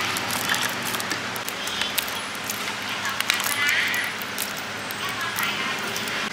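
Pad thai being cooked at a street stall: a steady frying sizzle with repeated sharp clinks of metal utensils, and voices in the background.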